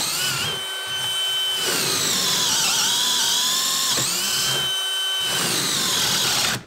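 DeWalt XR brushless hammer drill on speed three, boring through a wooden block under heavy load. The motor whine runs steadily, its pitch sagging and recovering a few times as the bit bites. It cuts off abruptly at the end when the trigger is released with the hole through.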